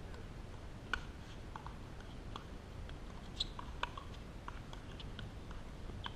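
Pickleball paddles striking a plastic ball during a rally: a series of sharp, hollow pops, the loudest about a second in, with several fainter ones in between.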